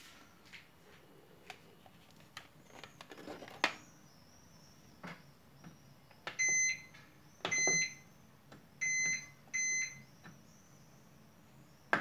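Microwave oven control panel beeping four times as its buttons are pressed, each a short, steady, high-pitched beep about half a second long. A few faint clicks and knocks come in the first few seconds.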